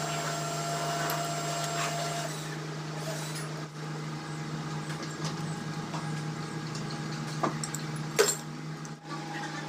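Hand wrench and steel fittings clicking and clinking on a stripped Kubota diesel engine block during teardown, over a steady hum; the sharpest clank comes about eight seconds in.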